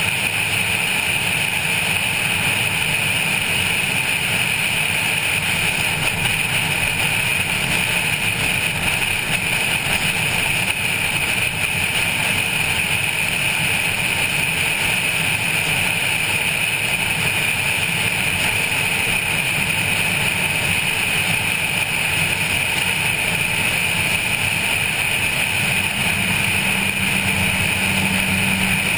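A Honda Civic 1.5 at speed, heard from a roof-mounted camera: a steady rush of wind and tyre noise with the engine running under it. The engine note steps up a little near the end.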